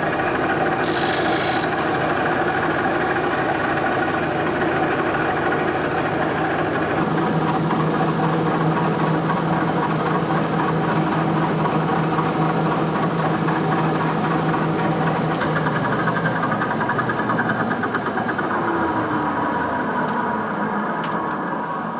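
Metal lathe running steadily with a constant motor hum, turning a wood-and-epoxy workpiece. A fainter tone slides downward near the end.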